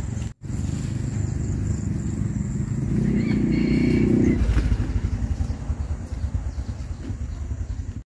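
Small motorbike engine running while riding, a dense low rumble that grows louder for a couple of seconds midway.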